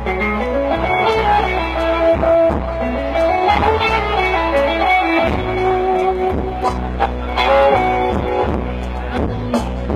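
Instrumental break in a pop ballad: a guitar plays a melodic line of held notes over a steady bass and backing band.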